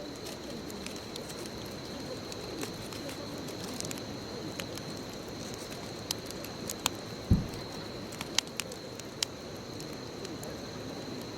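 Wood bonfire burning: scattered sharp pops and crackles over a steady hiss, with one low thump about seven seconds in.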